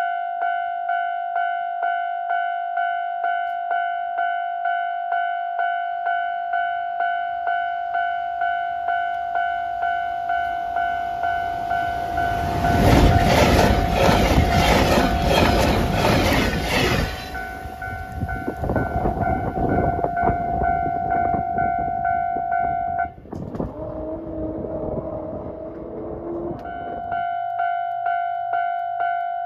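A train passes with a loud clatter of wheels over rail joints, heaviest for several seconds about halfway through, then fading. Throughout, a level-crossing warning bell dings in a quick even rhythm; it stops about three quarters of the way through and starts again near the end.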